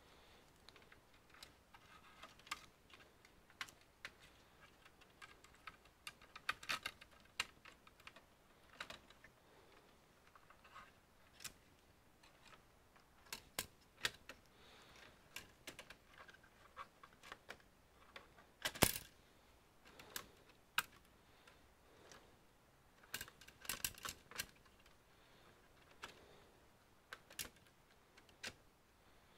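Scattered small clicks and taps of tools, screws and plastic parts being handled during the disassembly of an all-in-one computer, coming irregularly and sometimes in quick clusters, with the loudest click a little past halfway.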